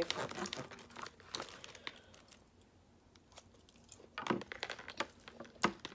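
Plastic knife and fork sawing at a steak in a plastic takeout tray, scraping and clicking against the container. There is a quiet spell in the middle, then a few sharp clicks near the end.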